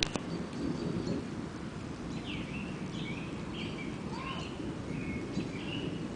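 A bird chirping in short, repeated phrases over a low, continuous rumble of distant thunder, with a single click at the very start.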